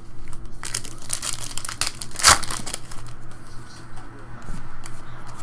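Foil wrapper of a Topps UFC trading-card pack crinkling and tearing as it is ripped open, loudest about two seconds in, then softer rustling as the cards are handled.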